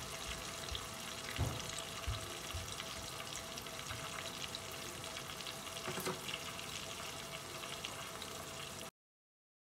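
Minced garlic sizzling in a pan of foaming melted butter: a steady, soft bubbling hiss with small scattered pops. The sound cuts off suddenly near the end.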